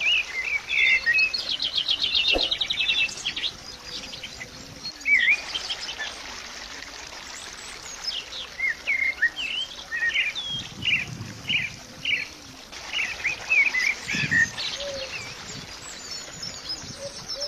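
Birds chirping and twittering: a fast trill in the first few seconds, then many short chirps, some rising and some falling, off and on to the end.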